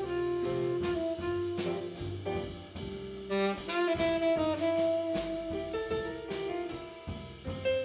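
Jazz quartet playing: a saxophone carries the melody in long held notes, over drums and bass.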